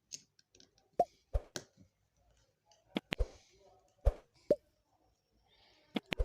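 Hard objects knocking and clicking, about four times in pairs a fraction of a second apart, each with a short ring. These are tools and parts of an electric iron being handled during repair.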